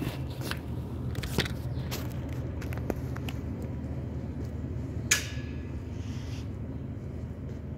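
Club Car electric golf cart running after the king pin repair: a steady low hum with a few light clicks and knocks, the sharpest about five seconds in.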